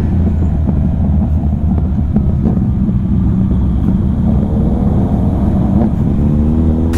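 Motorcycle engine running under a steady low rumble while riding, its note climbing as it accelerates from about four seconds in.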